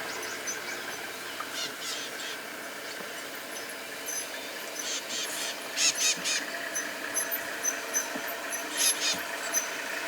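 Outdoor bush ambience: a steady hiss with short bursts of quick, high-pitched chirps, three or four strokes each. The bursts come more often from about halfway.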